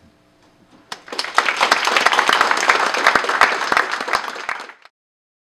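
Audience applauding, the clapping starting about a second in and cut off abruptly just before the end.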